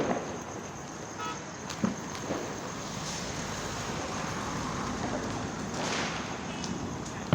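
Street noise during Diwali: steady traffic hum with a brief horn toot and a few sharp firecracker bangs, the loudest about two seconds in.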